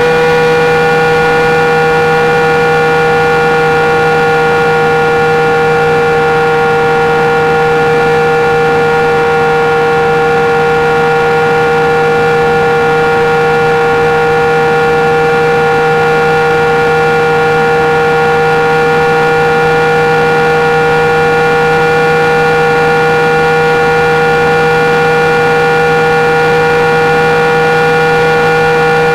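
Quadcopter's brushless motors and propellers whining at a steady throttle, heard from on board the aircraft. The pitch sags slightly in the first second, then holds level.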